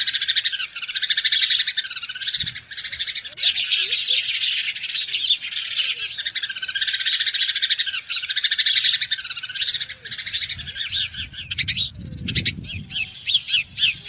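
A dense, continuous chorus of many birds chirping and chattering together.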